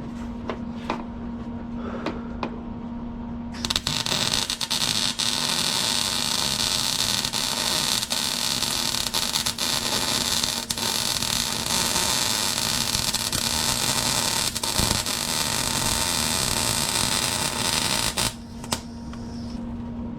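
MIG welder laying a continuous bead on steel, an even crackling hiss that starts about three and a half seconds in and cuts off about two seconds before the end. Before it there is a steady low hum and a few clicks. The bead ran a little too hot, but it's fine.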